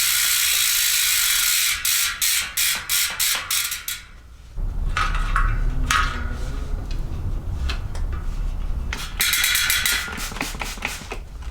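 Rear mountain-bike wheel's freehub ratcheting as the wheel spins. The fast clicking blurs into a steady buzz at first, then breaks into single clicks that slow as the wheel winds down; this happens twice, with handling knocks and rumbling of the wheel in between.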